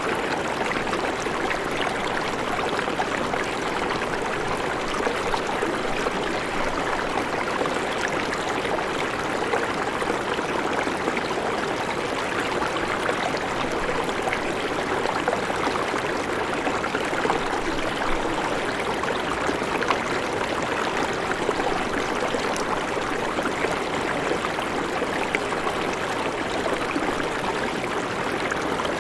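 River water running steadily over stones, an even babbling rush of flowing water.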